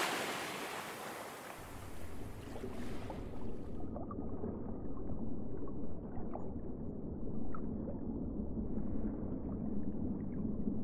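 Underwater plunge sound effect: the rush of a splash dies away over the first few seconds and gives way to a muffled, low underwater rumble with scattered small bubbling blips.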